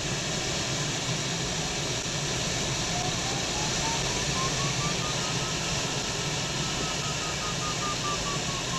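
Steady rush of air around the Duo Discus glider's cockpit canopy. From about three seconds in, the audio variometer beeps rapidly, its pitch rising and then slowly falling, the sign that the glider is climbing in lift.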